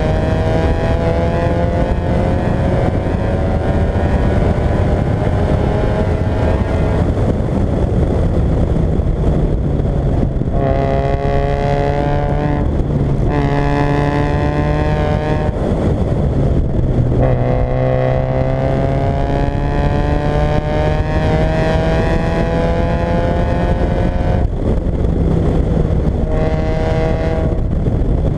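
Fiat Coupé 1.8 16v four-cylinder engine accelerating hard through the gears. Its pitch climbs steadily and then drops sharply at each gear change, several times over.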